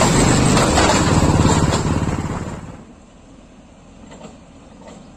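JCB backhoe loader's diesel engine running loudly at close range as the machine drives by, then dropping away about two and a half seconds in to a faint, distant engine sound.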